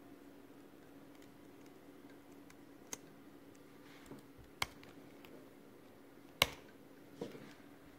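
Scattered sharp clicks of laptop keyboard keys being pressed, about five over several seconds, the loudest about six and a half seconds in, over a low steady hum.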